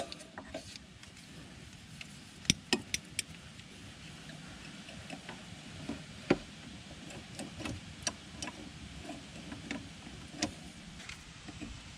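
Scattered sharp metallic clicks and taps of pliers and hand tools working a spring hose clamp in a utility vehicle's engine bay, a few close together about two and a half to three seconds in and single ones later. Under them is a low rumble of wind on the microphone.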